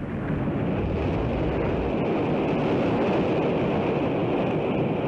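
A rocket exploding in flight: a loud, steady, noisy rumble with no distinct bangs.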